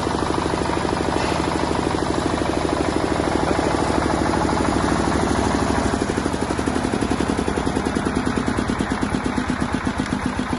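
Single-cylinder diesel generator engine running with a steady chugging beat. About six seconds in, the separate firing pulses become more distinct.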